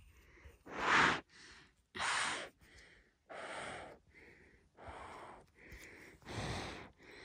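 A person breathing close to the microphone: a run of short, noisy breaths, about one every second or so.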